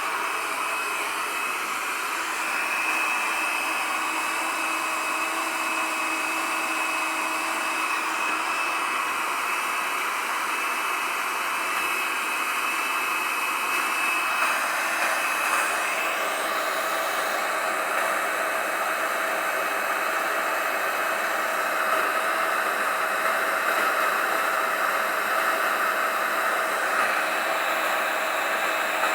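Electric hot air gun running steadily, a blowing hiss with a faint whine that shifts slightly about halfway through. It is drying out a rain-soaked distributor and its uninsulated ignition wiring, which the owner takes for the cause of the no-start.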